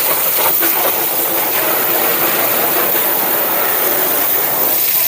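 Pressure washer running steadily, its motor humming under the hiss of high-pressure water spray.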